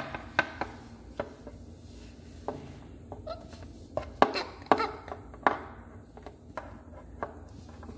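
Irregular light taps and clicks of a small plastic toy doll being moved by hand across a dollhouse floor, the loudest knocks about four to five seconds in.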